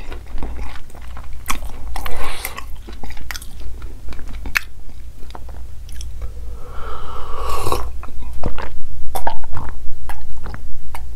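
Close-miked mouth sounds of a person chewing noodles, with wet clicks and smacks, then a slurping sip and a run of steady gulps of milk in the second half.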